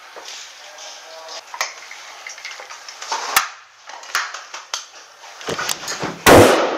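Scattered light knocks and clicks of gear being handled and moved, then one loud, sharp airsoft replica shot about six seconds in.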